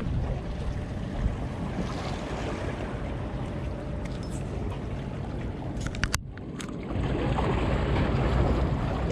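Wind rumbling on the microphone over the wash of sea water, with a few light clicks about six seconds in.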